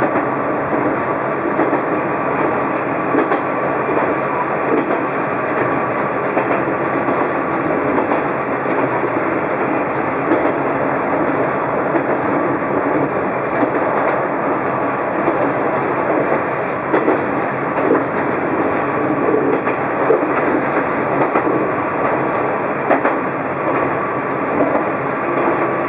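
Diesel railcar running along a single-track line: a steady rumble of the train with the clickety-clack of its wheels over rail joints.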